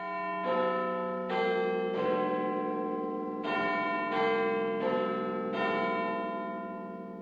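Chiming bells playing an eight-note tune in two phrases of four, each note ringing on over a low steady hum and the whole fading near the end.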